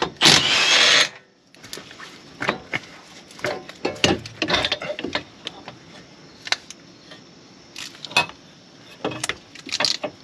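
Tools working on the tie rod end nut: a loud burst about a second long just after the start, then scattered metallic clicks and clinks of a wrench and ratchet on the nut and hub.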